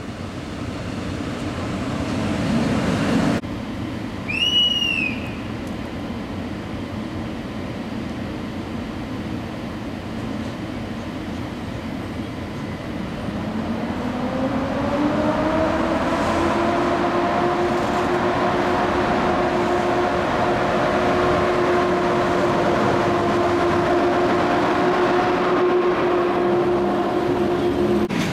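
TLK passenger train at a station platform. A rumble builds and cuts off abruptly about three seconds in, then comes a short high whistle. From about halfway a hum rises in pitch and then holds steady as the train's traction equipment winds up before it pulls out.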